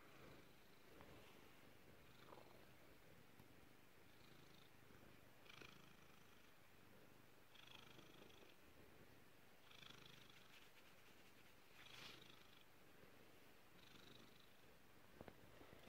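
Domestic cat purring softly and steadily, close to the microphone, with short rustling sounds every couple of seconds.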